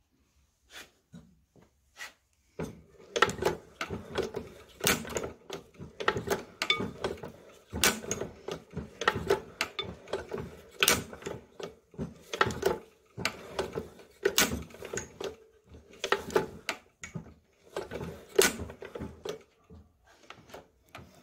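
Nelson Brothers hit-and-miss engine running: its valve gear and make-and-break igniter clatter in a quick, even run of clicks, with a heavier clack every second and a half or so. The clatter starts about two and a half seconds in.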